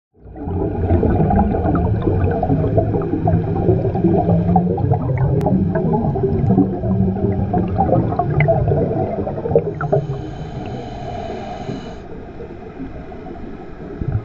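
Underwater ambience: a deep rumble full of bubbling and crackling pops, fading away over the last few seconds.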